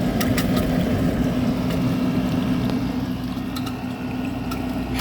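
GE 6,000 BTU wall air conditioner running: a steady compressor and fan hum with a strong low tone, and a few light clicks. The unit is icing up, its accumulator frozen, which the owner puts down to an overcharge.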